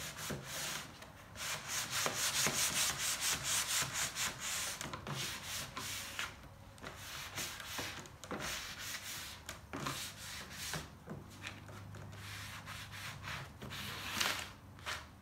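Sanding block rubbed by hand across a honey oak cabinet door, a light scuff-sanding with the grain to key the finish for paint. Quick back-and-forth strokes, about four a second, loudest in the first six seconds, then quieter and more scattered.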